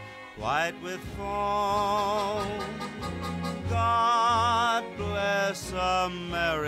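Music: a melody of long held notes that waver in pitch, over low sustained chords.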